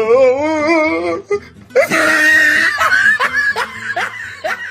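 Meme laughter sound effects: a wavering, wobbling laugh for about a second, then a loud cackling burst and a run of short falling ha-ha syllables.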